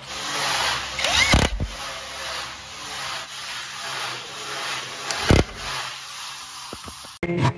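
DeWalt 20V cordless impact driver driving screws through a metal drawer slide into a wooden panel, in two short bursts: a brief motor whine about a second in and another burst about five seconds in. Music comes in near the end.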